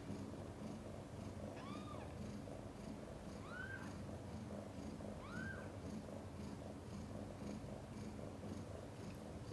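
Mother cat purring steadily while her newborn kittens nurse. Three short, high squeaks from the newborn kittens come about two seconds apart in the first half.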